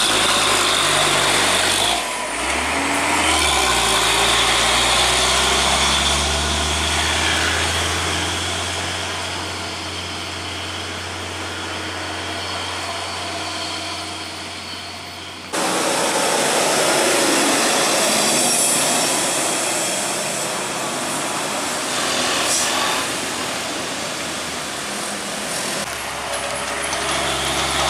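Diesel truck engines working hard up a steep climb as the trucks pass and pull away, with a motorcycle engine alongside near the start. The sound cuts abruptly to another truck about halfway through.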